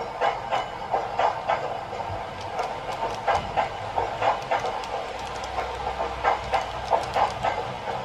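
N-gauge model train, an EF81 locomotive hauling container wagons, running along the track: a steady rolling rattle broken by irregular sharp clicks as the wheels cross the rail joints.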